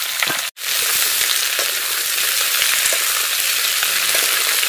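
Freshly added chopped vegetables (cauliflower stems, potato, radish, green vegetables) sizzling loudly in hot mustard oil in a wide metal wok, with small clicks of the metal spatula as they are turned. The sound cuts out for an instant about half a second in.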